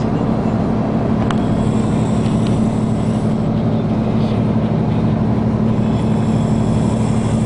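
Steady drone of a moving vehicle heard from inside the cabin, engine and road noise with a constant low hum. A short click about a second in.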